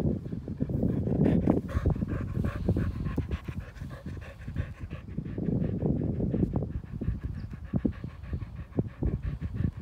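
Keeshond dog panting rapidly and evenly.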